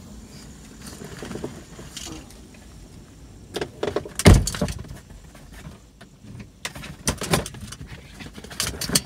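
A dog left alone in a parked car moving about: rattles and knocks against the seats and door, with a heavy thump about four seconds in and two more bursts of knocking and rattling near the end.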